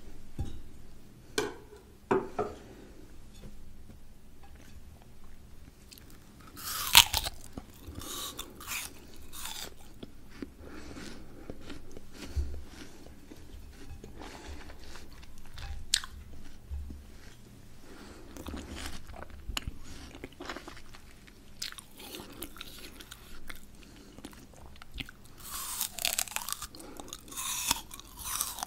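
Someone biting into and chewing crisp raw peeled fruit, with repeated crunches. One loud crunch comes about seven seconds in, and there is a dense spell of crunching near the end.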